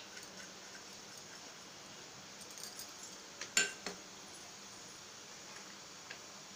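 A sharp metallic clink of a steel kitchen utensil or container being set down, about three and a half seconds in, with a lighter knock just after and a few small ticks, over a faint steady hiss.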